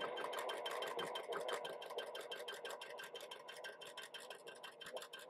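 Janome HD9 heavy-duty straight-stitch sewing machine running steadily, stitching through two layers of thin shirt cotton, with the needle mechanism clicking in a fast, even rhythm.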